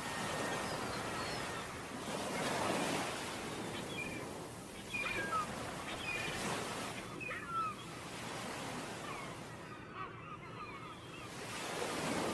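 Ocean waves washing onto a beach, swelling and falling back every few seconds. A few short high chirps sound over the surf.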